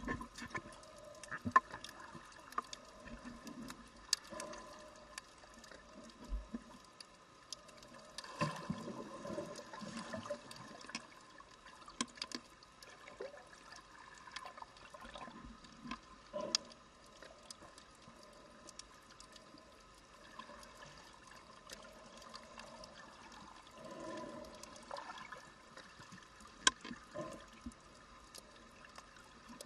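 Underwater sound through a camera's waterproof housing: muffled water movement with scattered sharp clicks. The water noise swells louder about eight seconds in and again around twenty-four seconds.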